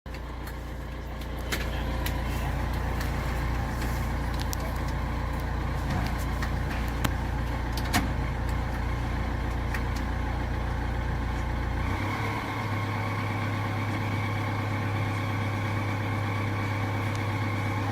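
Opel Astra 1.9 CDTI four-cylinder turbodiesel running with a damaged turbocharger, with a few sharp ticks in the first eight seconds. About twelve seconds in, the engine note changes and a steady high whistle comes in.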